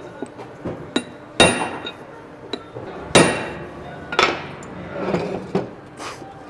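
Hammer striking a chisel set in the seam between two sections of an OSNA centrifugal pump's metal casing, driving the halves apart. About a dozen irregular metal-on-metal blows, each ringing briefly, the loudest about a second and a half and about three seconds in.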